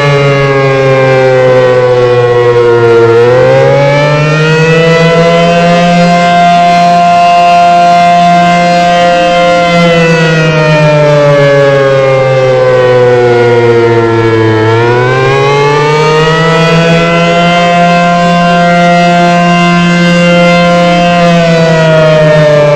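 ACA Banshee 115 outdoor warning siren sounding the attack signal: a loud wail whose pitch slides down, swings back up and holds high for several seconds, twice over, starting to fall again near the end.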